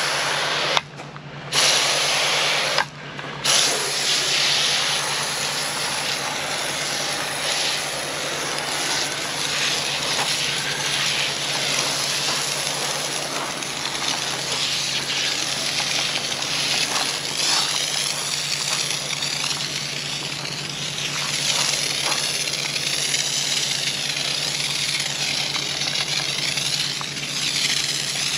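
IK Foam Pro 2+ hand-pump foam sprayer, fitted with its dry-foam pickup tip, hissing as it sprays thick foam onto a car panel. The spray is steady, with two brief stops about one and three seconds in.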